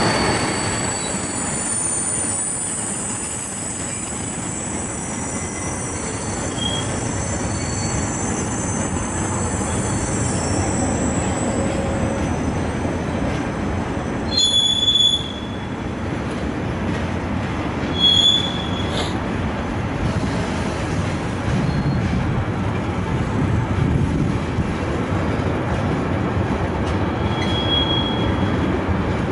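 Intermodal freight train of container and swap-body wagons rolling past with a steady rumble of wheels on rail. Thin high wheel squeals run through the first third, and two short, louder squeals come about halfway through.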